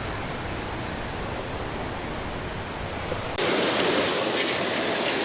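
Waterfall: a steady rush of falling water. About three and a half seconds in it cuts abruptly to a louder, fuller rush.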